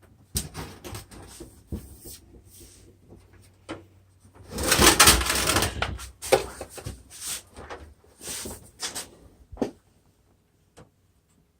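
Plastic housing of a 20-inch box fan being handled: a run of irregular knocks and clicks, with a louder stretch of scraping and rubbing about five seconds in.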